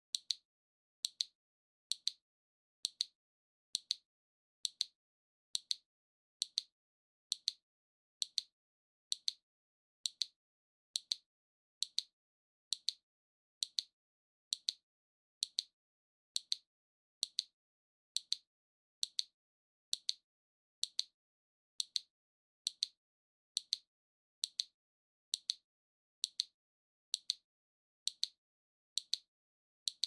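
Waving lucky cat (maneki-neko) figurine's arm mechanism ticking with each swing of the paw: a steady series of sharp, high clicks, evenly spaced.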